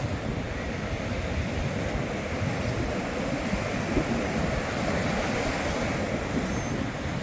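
Strong wind buffeting the microphone: a steady rushing noise with an uneven low rumble.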